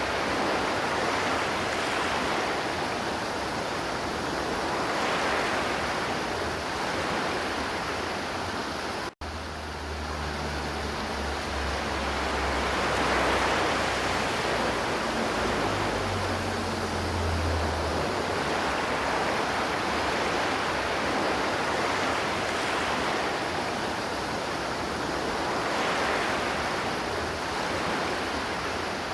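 River water flowing, a steady rush with slow gentle swells. About nine seconds in the sound cuts out for an instant, and a low rumble runs under the water for several seconds after it.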